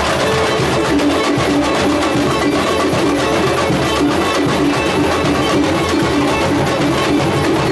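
Loud carnival street-band music with drums and percussion keeping a steady beat, played through a sound truck's speakers.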